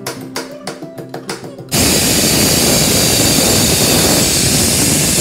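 Pressure cooker venting steam through its weight valve: a loud, steady hiss that starts abruptly about two seconds in, after background guitar music.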